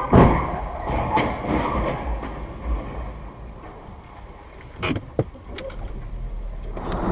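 Car collision: one loud crash just after the start, then scattered clunks and rattling, with two sharp knocks around five seconds in, over the low rumble of the car.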